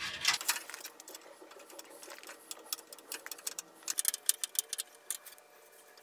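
Clusters of rapid, light metallic ticks and clicks from a case fan being fastened into a steel PC case with screws, the densest runs about four and five seconds in.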